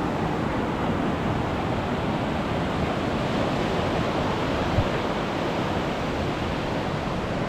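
Ocean surf breaking and washing onto a beach, a steady rush of noise, with a brief low bump about five seconds in.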